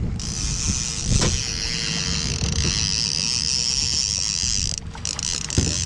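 Boat motor running steadily under wind and water noise while trolling, with a faint steady whine that stops near the end.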